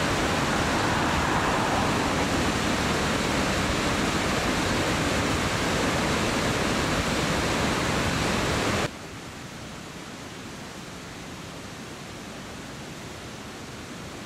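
Swollen, muddy floodwater rushing through a river in spate, a steady dense noise of fast turbulent water. The sound drops abruptly to a quieter level about nine seconds in, and then stays steady.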